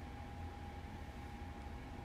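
Quiet room tone: a steady low hum with a faint, thin, steady whine above it. There are no distinct events.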